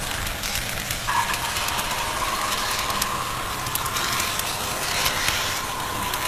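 HO scale model train running along its track, picked up by a camera riding with it: a rumble full of rapid irregular clicks and crackles, with a steady high whine that starts about a second in.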